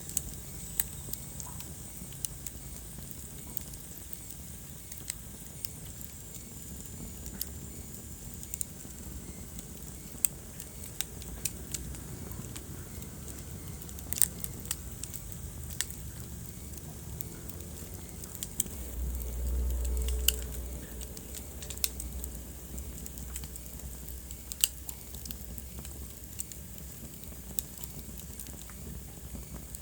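Wood fire burning in a fireplace, crackling with sharp pops scattered irregularly over a low steady rumble of flames. The rumble swells louder for a couple of seconds around twenty seconds in.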